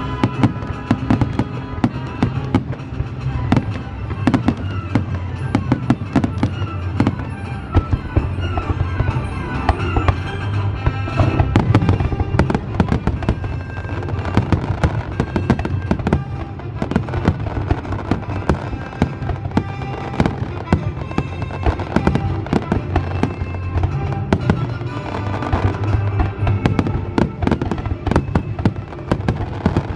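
Aerial fireworks bursting in a dense barrage: a rapid, unbroken string of bangs, with music playing underneath.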